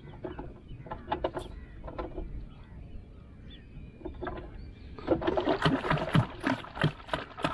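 Scattered knocks and handling noises in a wooden canoe as fishing line and gear are worked, building to a dense clatter of knocks against the boat in the last two seconds or so.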